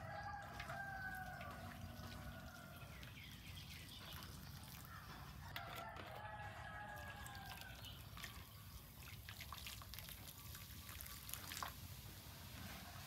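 A rooster crowing twice, faint, each crow about two seconds long, with scattered light clicks and taps in between.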